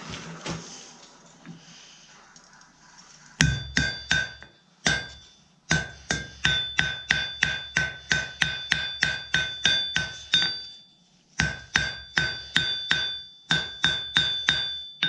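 Blacksmith's hammer striking a hot horseshoe on an anvil while drawing it into a hoof pick: runs of blows at about two to three a second, each with a bright metallic ring, broken by a short pause about two-thirds through. A faint steady hiss comes before the first blow, about three seconds in.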